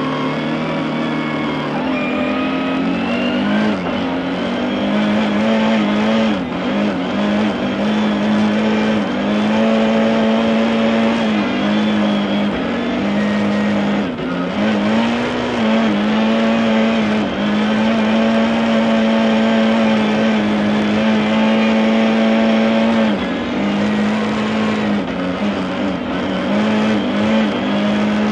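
Rally-prepared Lada 21074's 1.6-litre four-cylinder engine heard from inside the cabin, pulling hard from the start line. It is held at high revs, and its note dips and climbs back several times as the driver changes gear and lifts for corners.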